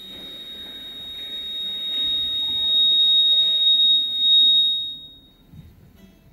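A single steady high-pitched tone that swells louder and then fades away after about five seconds.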